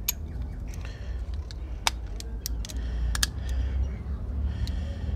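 Metal hand tools clinking: a ratchet, extension and spark plug socket being handled and fitted together, giving a few sharp separate clicks over a low steady rumble.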